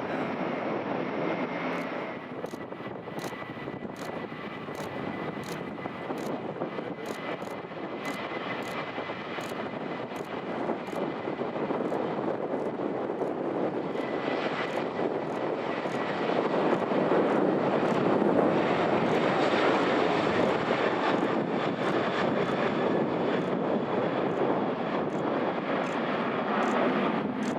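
Jet airliner engines running, a steady rush with a thin high whine over it. It grows louder about halfway through as the Boeing 737-800 with its CFM56-7B turbofans comes closer.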